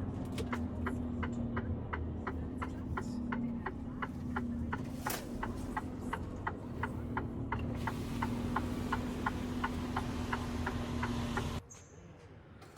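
Machinery running with a low rumble and a steady hum, with a sharp regular ticking about three times a second; it all cuts off suddenly near the end.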